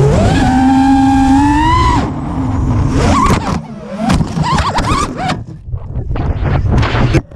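5-inch FPV racing quadcopter's motors and propellers whining, rising in pitch under steady throttle. The whine then breaks into choppy bursts that rise and fall in pitch as it dives through a tree's branches, and it cuts off suddenly near the end as the quad crashes.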